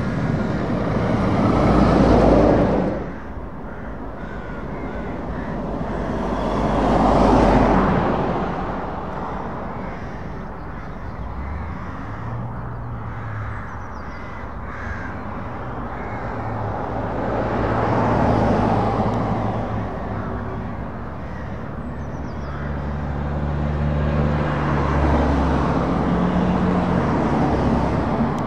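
Road traffic passing: a Scania tanker lorry goes by about two seconds in, and more vehicles swell up and fade away about seven, eighteen and twenty-five seconds in. Through the second half the low steady drone of an approaching Scania lorry's diesel engine runs under the tyre noise.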